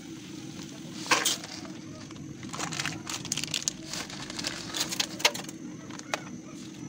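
A pot of water at a rolling boil gives a steady low rumble, over which a plastic pasta bag crinkles and crackles in scattered bursts as dry spaghetti is tipped from it into the pot.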